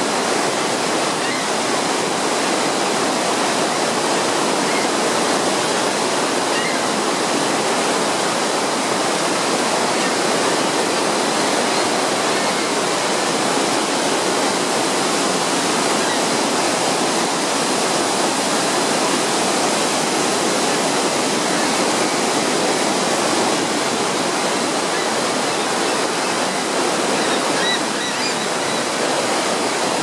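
Bridal Veil Falls at Niagara Falls, heard up close at its base: a loud, steady rush of falling water crashing onto the rocks.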